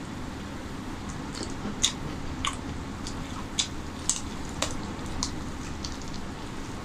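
A man chewing and biting chicken curry off the bone close to the microphone: irregular sharp wet mouth clicks, about one or two a second, over a steady low background noise.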